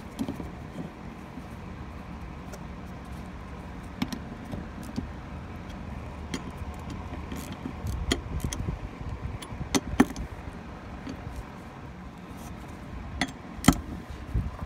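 Sporadic metal clicks and clinks as a flat metal fuel pump lock ring tool is set onto the fuel pump's lock ring and its bolts adjusted. The sharpest clicks come about ten seconds in and again near the end, over a steady low background hum.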